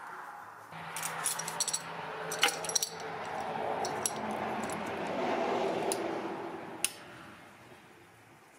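Small metal hand tools clinking and rattling with scattered sharp clicks, then handling noise and one sharp click near the end as locking pliers are clamped onto a headlight-washer fluid hose.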